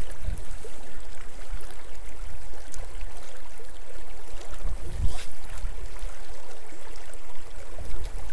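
Small river riffle rushing and rippling past a wading angler, with wind buffeting the microphone in uneven gusts, and one short louder thump about five seconds in.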